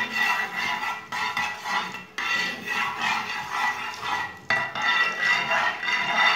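Perforated steel skimmer stirring and scraping across a nonstick frying pan as whole cumin seeds roast in hot oil.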